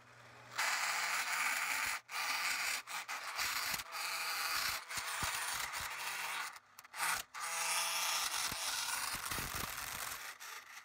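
Saw blade of a LEGO table saw driven by a half-horsepower motor, rubbing and grinding against a wooden craft stick in several long stretches with short breaks as the stick is pressed in and eased off. The blade is not getting through the wood.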